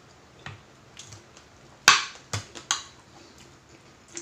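Eating at the table: a few short, sharp clicks and taps of utensils and chewing, the loudest about two seconds in.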